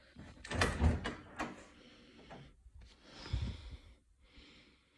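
An interior door being opened and handled: a couple of knocks and rattles about a second in, then a low thump past three seconds.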